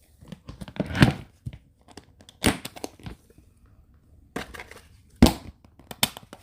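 Packaging wrapper being crinkled and torn open by hand, in several crackly bursts with short pauses between them.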